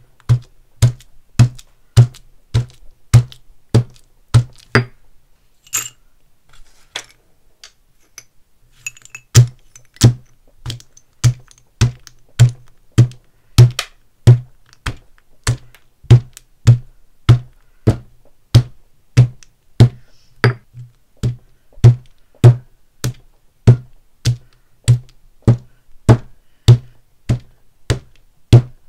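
Stone pestle pounding sticks of chalk in a stone mortar: a steady run of heavy thuds, about three every two seconds, each with the crunch of chalk breaking. About five seconds in the strikes pause for a few seconds of lighter taps, then the pounding resumes.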